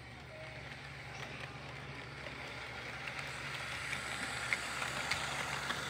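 Model train cars rolling on sectional track, a steady wheel rattle growing louder as the cars come near the camera, with a few sharp clicks near the end as wheels cross the track joints and the switch.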